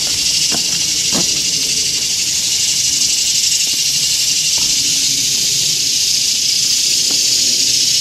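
A steady, high-pitched buzzing drone of an insect chorus in the woods, unbroken throughout. A couple of soft knocks come in the first second and a half.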